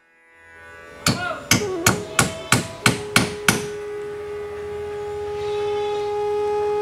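About eight quick hammer blows on a wooden boat hull, roughly three a second, stopping about halfway through. A held musical note then comes in and stays.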